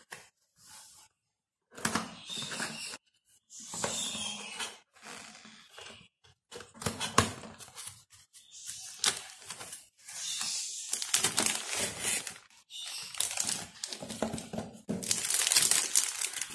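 Cardboard box flaps opened and a plastic-bagged vegetable chopper slid out, with irregular rustling, crinkling plastic and sharp clicks that are loudest near the end.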